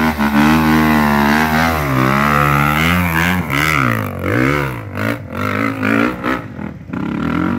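Off-road vehicle engine running hard close by, its pitch rising and falling with the throttle, with several quick dips and rises past the middle before it breaks up near the end.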